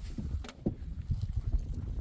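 Wind buffeting the phone's microphone in a gusty low rumble, with a few sharp clicks, the clearest about half a second in.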